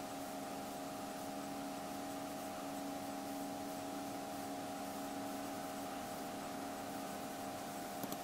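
Steady background hiss with a constant electrical hum made of several steady tones, and a few quick clicks near the end.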